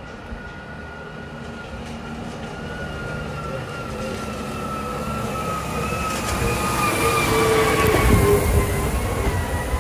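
Street-washing truck approaching and passing close, its engine and pump running with a high whine that slowly falls in pitch, growing steadily louder. The hiss of its water spray comes in over the last few seconds as it goes by.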